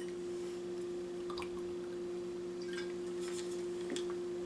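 A person drinking from a water bottle: a few faint sips and swallows, with soft clicks, over a steady low hum.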